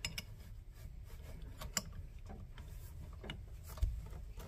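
A few light metallic clicks as two crescent wrenches work against a brass end-to-end air brake hose coupling, giving the fitting a last tightening twist.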